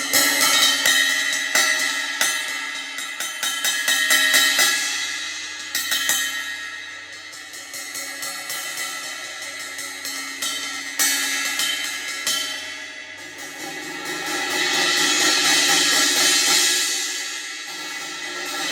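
Waldman B20 Turkish crash cymbals struck several times with sticks and left to ring with a long shimmering wash. About fourteen seconds in, a run of quick strokes swells the cymbal wash up and back down.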